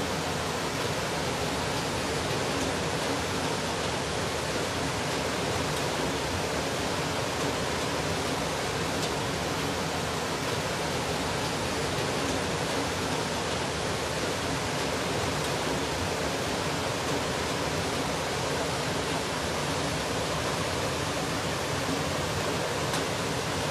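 Steady, unbroken rush of fast-flowing floodwater surging through a flooded courtyard.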